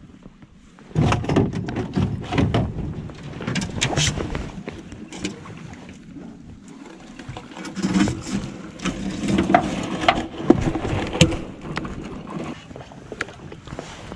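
Rustling of clothing and irregular clunks and rattles of fishing gear being handled in an aluminum jon boat.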